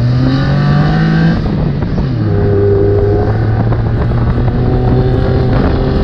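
Off-road buggy's fuel-injected engine pulling under throttle. Its pitch rises for about the first second and a half, falls back, then holds steady at a cruise.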